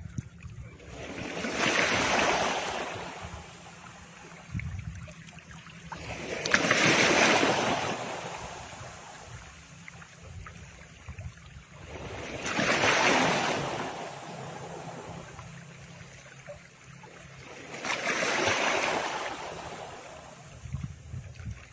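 Rushing noise that swells and fades four times, roughly every five and a half seconds, like surf washing in, over a faint steady low hum.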